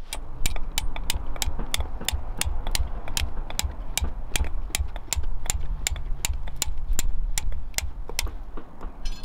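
A hammer driving a tent peg into gravelly ground with quick, steady blows, about three a second, each a sharp clink.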